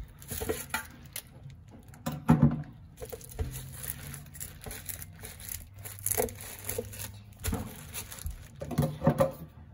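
Kitchen scissors scraping scales off a whole raw angelfish: irregular rasping scrapes and crinkling as the scales come loose, with a few louder strokes.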